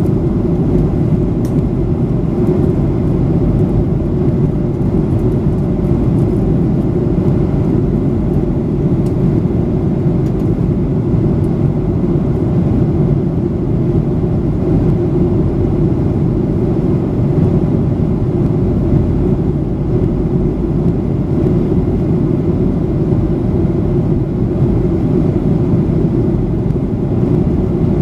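Steady cabin noise inside a Boeing 737-800 in flight, heard from a window seat by the wing: a constant low rumble of airflow and the CFM56-7B engines.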